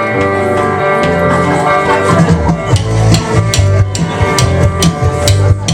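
Rock band music: a guitar riff, with drums and a cowbell coming in about two seconds in, the cowbell struck in a steady beat about two to three times a second.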